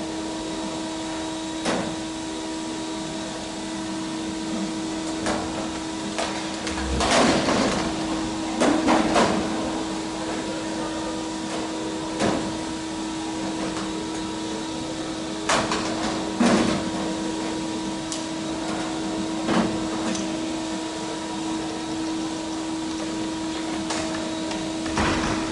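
Scattered knocks, taps and clicks of a thin aluminium aircraft skin panel being handled against the fuselage frame and pinned in place with skin pins, about a dozen in all, the loudest bunched about seven to nine seconds in. A steady hum runs underneath.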